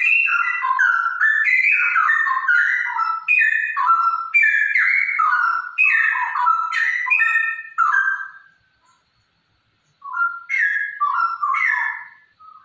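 Straw-headed bulbul (cucak rowo), a female according to the title, singing a fast run of loud whistled notes that leap up and down in pitch. The song breaks off about eight and a half seconds in and starts again after a pause of about a second and a half.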